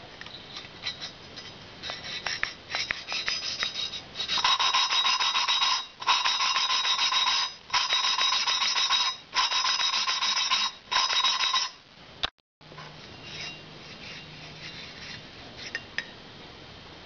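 Valve being lapped into its seat in a Harley Evo Sportster 1200 cylinder head: a hand lapping stick twisted back and forth, the grinding compound rasping between valve face and seat. It comes in five gritty bursts of about a second and a half with short breaks, after a few light clicks of the tool, and stops about two-thirds of the way through. The lapping is meant to grind out pitting on the seat.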